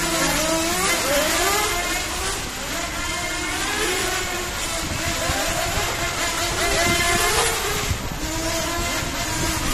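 Several 1/10-scale electric touring RC cars running on a track, their motors and drivetrains whining up and down in pitch over and over as they accelerate and slow for corners.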